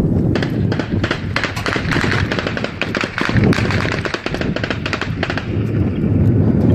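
BGM-71 TOW anti-tank missile moments after launch, its rocket motor giving a loud, steady crackling rush over a low rumble as it flies out toward the target.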